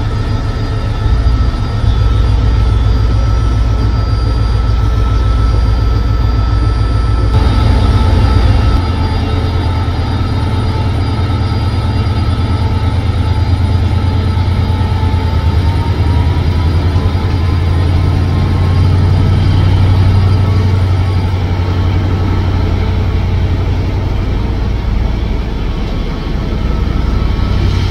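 SRT Qishuyan diesel-electric locomotive 5247 running with a steady deep engine drone as it hauls a container freight train past, with the loaded container wagons rolling along the rails.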